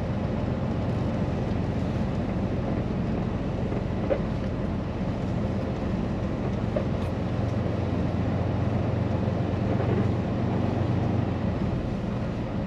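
Semi truck's diesel engine running with a steady low drone, heard from inside the cab as the truck moves at low speed. A single click about four seconds in.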